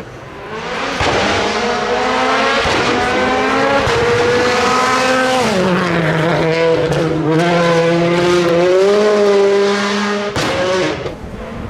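Rally car engine at high revs on a demonstration run, its pitch climbing, stepping and sliding as the driver shifts and lifts off, with a marked drop about five and a half seconds in. The sound eases near the end.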